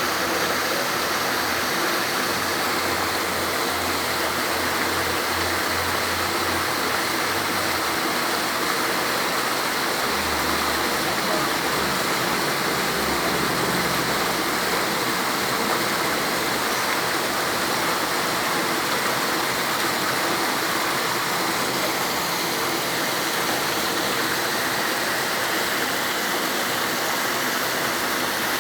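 Steady rushing water, an even unbroken wash of sound with a faint low hum under it during the first half.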